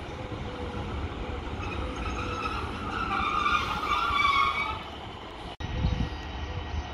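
Class 153 diesel railcar creeping into the platform, its underfloor diesel engine rumbling steadily. A high, wavering squeal from the train as it slows swells for about three seconds in the middle. A brief dropout comes just after halfway.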